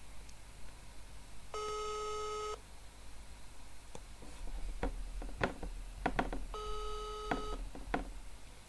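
Ringback tone of an outgoing phone call playing through a smartphone's speaker: two one-second tones about five seconds apart, so the call is ringing and not yet answered. A few short clicks and taps fall between the rings.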